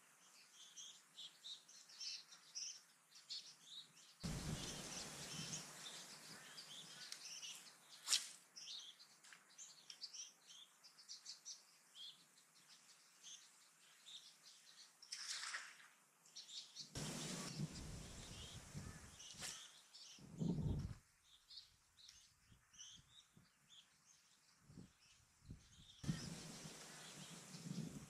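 Many small birds chirping and calling in the riverside trees. Three spells of rushing noise come and go, the first about four seconds in, and there is a sharp click about eight seconds in.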